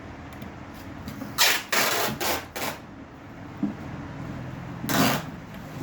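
Metal-on-metal scraping and clinking from an Allen key working the die bolts loose on a pneumatic crimping machine: three short noisy bursts in quick succession, then one more near the end, over a steady low hum.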